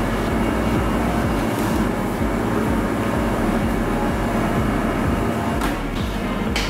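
A steady low rumble of running machinery.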